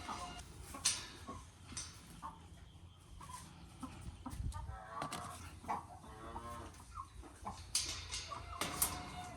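Chickens clucking in short, scattered calls, with sharp clicks and scratchy noises, loudest about a second in and near the end.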